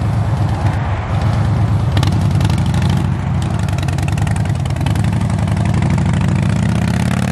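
Harley-Davidson V-twin motorcycle riding slowly past, its engine running loud and low with a steady pulsing beat.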